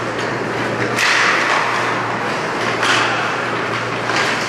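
Ice hockey play on the rink: a sharp crack about a second in and a duller knock near three seconds, the impacts of stick, puck and boards, over a steady low hum.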